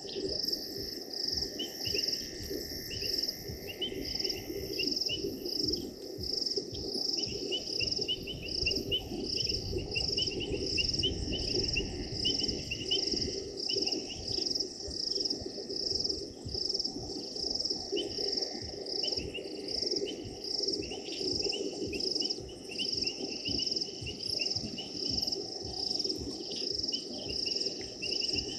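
Night chorus of crickets and other insects: a steady, evenly pulsing high chirring, with stretches of rapid trilling just below it that start and stop.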